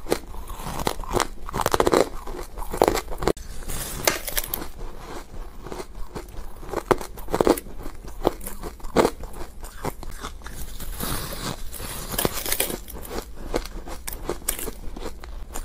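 A person biting into and chewing a block of powdery, frosty ice: repeated crisp crunches, a few louder bites standing out, with crackly chewing between them.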